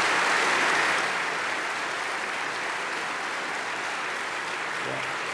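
Audience applauding, loudest in the first second, then settling into steady, lighter clapping.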